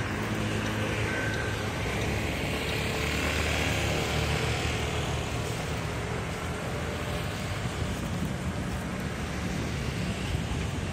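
Steady road traffic noise. A nearby vehicle engine runs at a low pitch through the first half and fades out about six seconds in.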